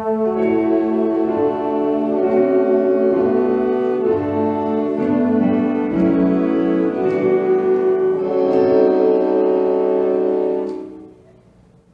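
Wind band with brass playing a slow passage of held chords that change every second or two. The music dies away about a second before the end.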